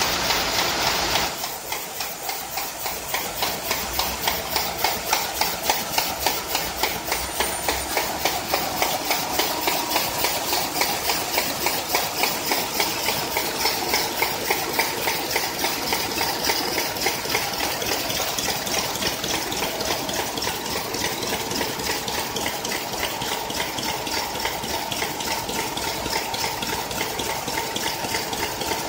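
ZF280B envelope and paper bag making machine running, its mechanism clattering in a steady rhythm of about two to three strokes a second. A louder hiss sounds over the first second or so.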